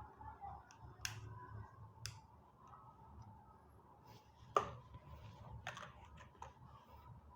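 Scattered light clicks and knocks of small objects being handled, the loudest about four and a half seconds in, over a faint steady hum.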